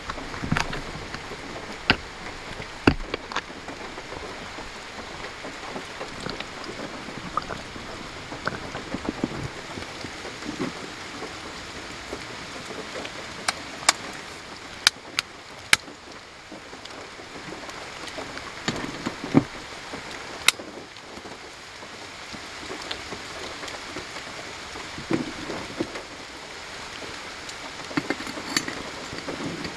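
Steady rain falling, with scattered sharp clicks and light taps of small metal parts being handled: a brass alcohol burner and its cross-shaped pot stand set down on a wooden table.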